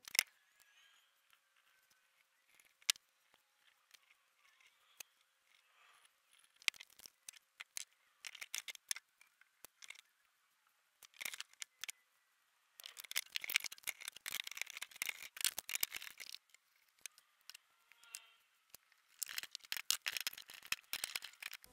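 Faint workbench handling sounds of chair parts and tools: scattered sharp clicks and taps, then two longer runs of dense rapid clicking, one about halfway through and one near the end.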